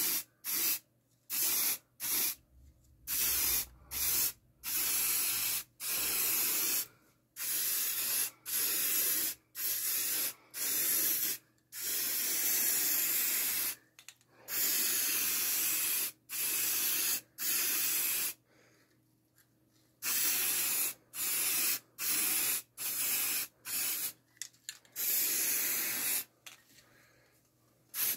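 Aerosol spray-paint can hissing in many short bursts, roughly one a second, with a longer spray of about two seconds midway and brief silent gaps between passes.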